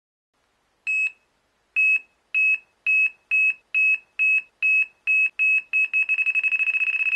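Electronic carp-fishing bite alarm beeping. Single high beeps start about a second in at roughly two a second, then quicken into a rapid, nearly continuous stream about six seconds in: the sign of a fish running and taking line.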